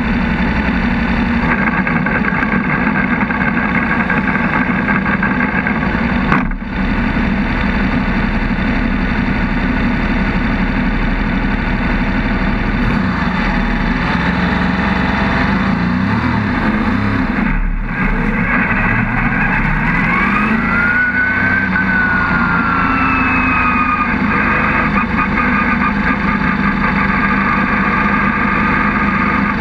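Lola T70 Spyder's V8 racing engine heard onboard, running hard at racing speed. The note briefly cuts out twice, about six and eighteen seconds in, and it rises and falls in pitch later.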